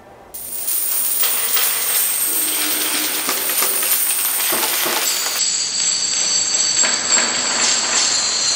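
New York subway train running loud, with high metallic squealing and rattling. It starts abruptly, and its sound changes sharply about five seconds in.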